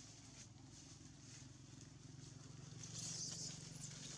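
Low, steady hum of a distant motor engine, growing a little louder about three seconds in, with soft rustling of dry leaves underfoot.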